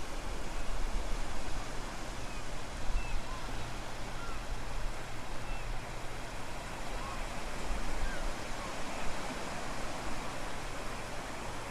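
Strong wind buffeting the microphone over a steady wash of ocean surf, with a few faint short bird chirps scattered through it.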